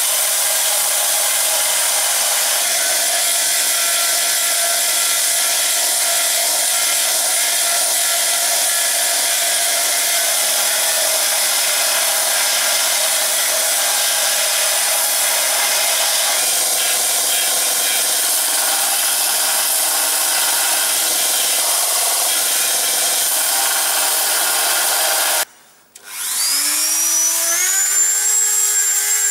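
Bench grinder with a belt-sander arm running while a knife blank is held against the sanding belt: a steady grinding hiss. About 26 seconds in it cuts off and a handheld rotary tool spins up with a rising whine, then runs steadily at a high pitch at the blade.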